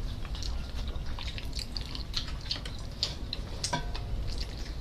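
Close-up wet chewing and lip-smacking of people eating juicy roast chicken by hand, a scatter of small irregular clicks and moist ticks.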